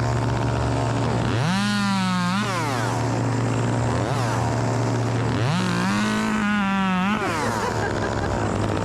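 A two-stroke chainsaw revs up twice, about a second and a half in and again about five and a half seconds in. Each time it holds high for a second or two, then drops back to idle, while another engine runs steadily underneath.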